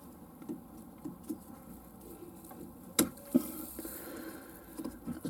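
Faint scattered light knocks, then a sharp click about three seconds in and a softer click just after it.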